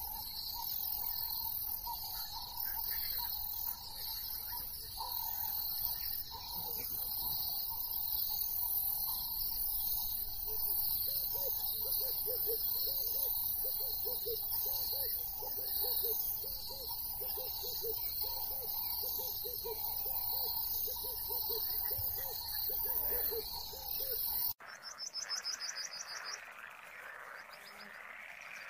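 Steady chorus of crickets and other insects, with a pulsing chirr high up and a low call repeated a few times a second through much of it. About 24 seconds in, the sound cuts abruptly to a quieter background that opens with a short, rapid bird trill.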